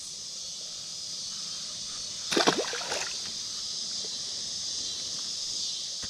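A small smallmouth bass released by hand splashes into the river beside a kayak, one short splash about two and a half seconds in, with a smaller slosh just after.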